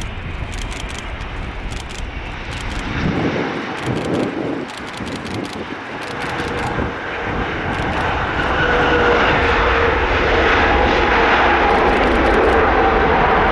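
Airbus A330 airliner's jet engines as it flares and touches down. The steady engine noise grows louder about two-thirds of the way through, and a steady whine sits on top of it.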